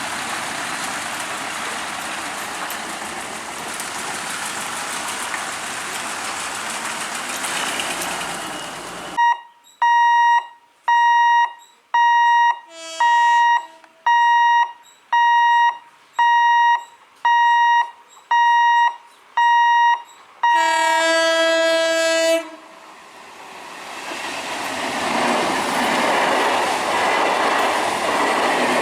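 An EMU local train running past with a steady rush of wheel and carriage noise, then its horn sounding a rapid series of short, evenly spaced blasts, about one a second, with a lower tone joining once. A longer blast in a chord of several tones follows, and the rush of a passing train builds again near the end.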